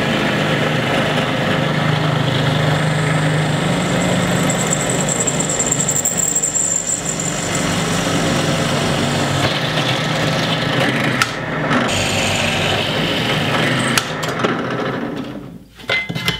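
Bench drill press running, its bit cutting through a thin sheet-metal bracket into the wooden board beneath. It gives a steady motor hum with a high whine for a few seconds partway through. A few knocks come near the end as the bit is raised and the work is moved.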